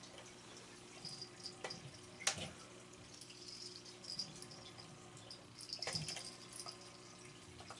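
Light clicks and taps as a cat bats a wobbling wire cat toy on a tile floor: the sharpest a little over two seconds in, another around six seconds, with faint high rattling between them. A steady low hum runs underneath.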